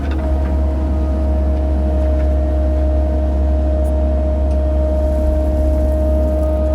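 Mini excavator's diesel engine running steadily under work, with a low rumble and a steady whine held over it.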